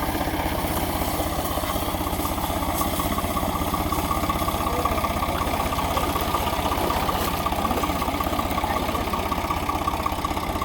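Heavy diesel engine idling steadily with an even, fast beat and a constant whine over it.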